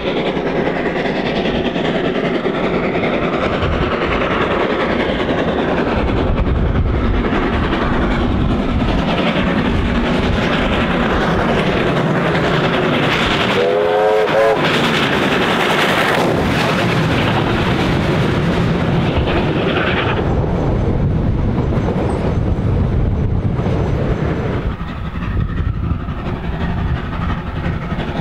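NZR Ww class steam tank locomotive hauling a passenger train past, with rapid exhaust beats and the clatter of wheels over rail joints. A short, rising whistle sounds about halfway through, and the sound falls away somewhat near the end.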